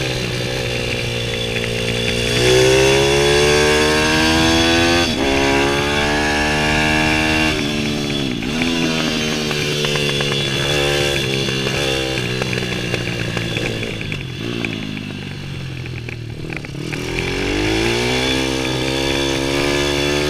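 Stomp supermoto pit bike's small single-cylinder engine under hard acceleration on track, its pitch climbing through each gear and dropping sharply at each shift. The engine eases off and quietens for a few seconds about two-thirds of the way through, then winds back up near the end.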